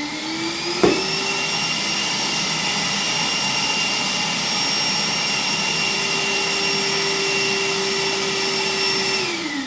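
Parkside PWDA 20 Li A2 cordless wet and dry vacuum's motor spinning up and running with a steady whine. Near the end it winds down and stops after only about ten seconds, as its already drained 4 Ah battery gives out.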